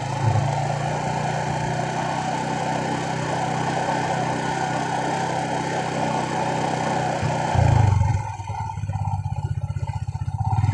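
Motorcycle engine running steadily at low speed along a path. About eight seconds in it briefly gets louder, then falls to a quieter, evenly pulsing note as the bike slows.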